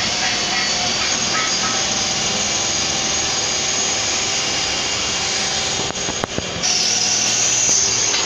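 Steady loud mechanical noise, an even rushing sound with faint steady tones in it. About six seconds in it dips briefly with a couple of clicks, then comes back slightly louder and hissier.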